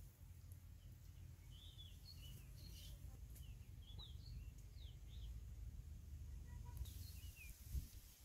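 Scattered faint bird chirps, short quick notes sliding up or down in pitch, over a low steady rumble; otherwise near silence.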